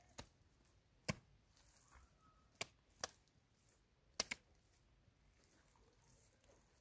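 Handfuls of wet mud being slapped onto a mud wall to patch it: six short, sharp slaps at irregular intervals, two of them in quick succession.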